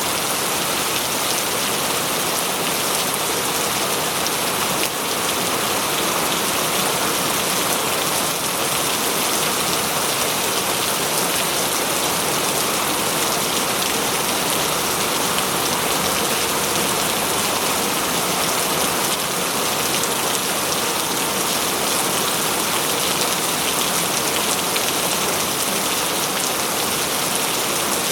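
Steady rain falling on foliage and ground, a dense, even hiss of drops.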